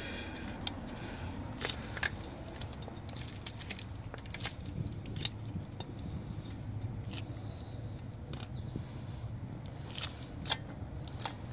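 Squeezing a tube of grease onto a threaded propeller shaft: scattered small clicks and crackles from the tube and the grease, over a steady low hum.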